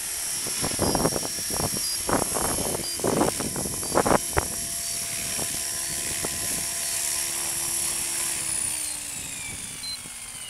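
Mikado Logo 550 SX electric RC helicopter flying: a steady high motor whine over the rotor noise, with loud uneven whooshing surges in the first few seconds. Near the end the whine and rotor tone fall in pitch as the helicopter sets down and spools down.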